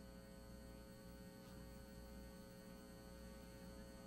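Near silence with a faint, steady electrical hum in the background.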